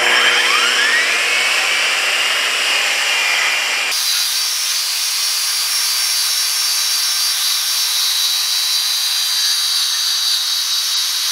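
Large angle grinder with a knotted wire cup brush running against a flat steel plate, scrubbing paint off it. A whine rises as the motor comes up to speed in the first second, the sound changes abruptly about four seconds in, and it cuts off suddenly at the end.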